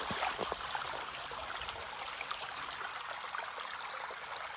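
Shallow stream running over stones close by, a steady trickling rush of water. In the first half-second a few splashes of feet stepping through the water.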